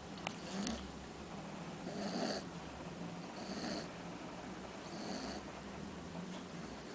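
Cocker spaniel puppy snoring in its sleep: three noisy snoring breaths, about a second and a half apart.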